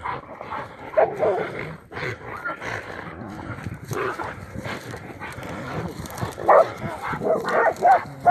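Hog-hunting dogs whining and yelping in short bursts over a caught wild pig. One call comes about a second in, another around four seconds, and several close together near the end.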